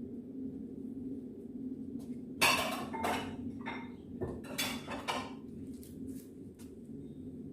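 Dishes clattering and clinking in a quick run of knocks that starts about two seconds in, the first the loudest, and dies away after about three seconds, over a steady low hum.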